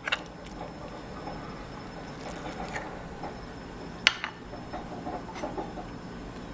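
Metal spoon clinking and scraping against a ceramic bowl while stirring syrup into oatmeal: a few sharp clinks, the loudest about four seconds in. Underneath, a coffee maker rumbles faintly and steadily.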